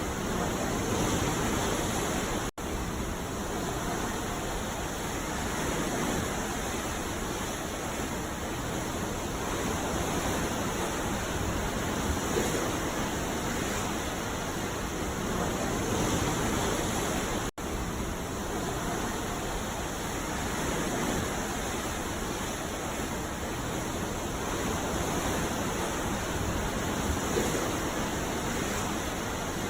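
Ocean surf: waves washing and breaking continuously, swelling and easing every few seconds. The sound cuts out for an instant twice.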